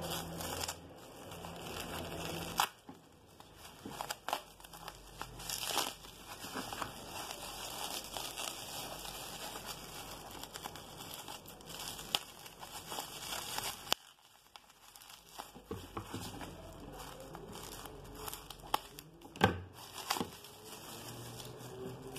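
Plastic bubble wrap crinkling and rustling as it is unwrapped by hand, with sharp crackles throughout and a brief lull about two-thirds of the way through.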